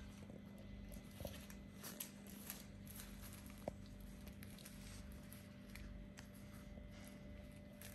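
Four-week-old kittens scrabbling and rustling as they play, faint scattered scuffs and light ticks with one sharper tick a little before the middle, over a steady low hum; no meowing.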